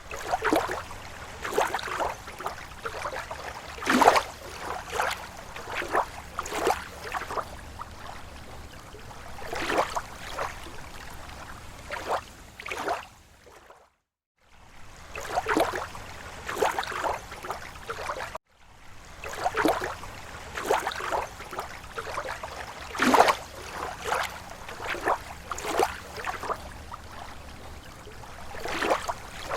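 Small slow waves lapping against a lake shore: irregular sloshes and gurgles, one every second or so, over a steady low wash of water. The sound cuts out completely for a moment twice partway through.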